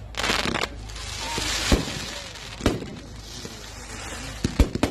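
Fireworks going off: a crackling hiss through the first couple of seconds, then separate sharp bangs, with a quick cluster of bangs near the end.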